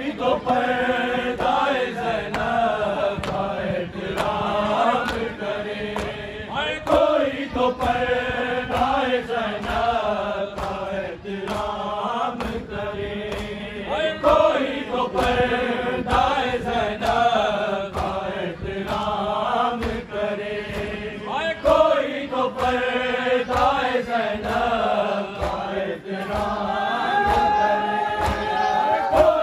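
A crowd of men chanting a Shia noha in unison, a repeating mournful phrase, over steady rhythmic slaps of chest-beating (matam).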